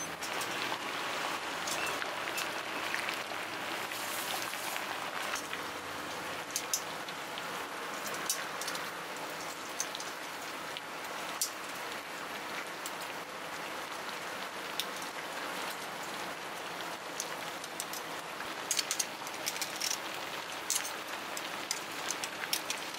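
A large pot of water at a rolling boil, bubbling and hissing steadily as spaghetti cooks in a perforated steel pasta basket. A few short sharp clicks come through, most of them near the end.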